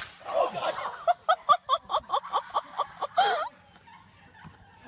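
High-pitched laughter in quick bursts, about five a second, ending in a louder rising-and-falling shriek about three seconds in.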